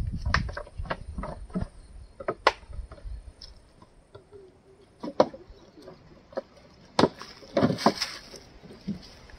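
Irregular sharp knocks and cracks, like sticks and twigs snapping and knocking on a dry forest floor, a dozen or so scattered through, with a busier cluster about seven to eight seconds in.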